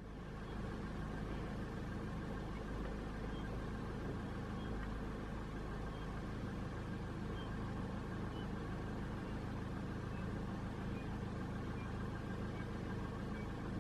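A vehicle engine idling: a steady low rumble.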